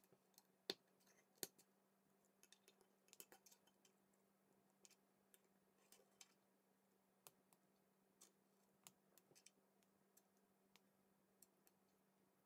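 Plastic K'NEX rods and connectors clicking and snapping as they are pushed together and handled, in scattered irregular clicks. The two loudest come about a second in, with a quick run of clicks around three seconds and only faint, sparse ticks after that.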